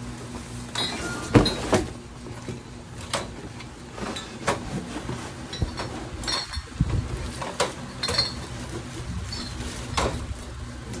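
Cardboard boxes rubbing and knocking together as a beer-tower box is slid up and out of its brown outer shipping carton: irregular scrapes and a dozen or so sharp knocks.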